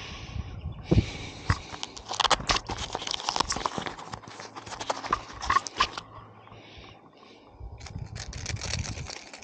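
Rattle inside an OSP Dunk 48SP hard-body crankbait clicking in quick, irregular runs as the lure is shaken, from about a second in to six seconds and again near the end.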